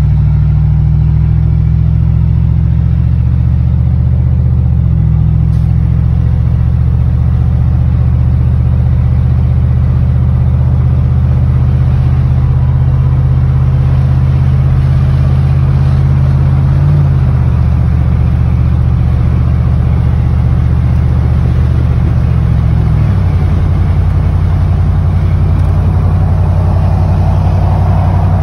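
Pickup truck's engine and exhaust rumbling steadily while cruising, heard from inside the cab. The low drone shifts pitch a few times, as the engine speed changes.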